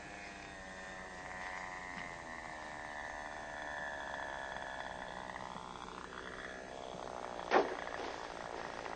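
Radio-controlled float plane's small engine buzzing as it flies low past, its pitch sinking over several seconds. About seven and a half seconds in, a single sharp smack as the floats hit the water on touchdown.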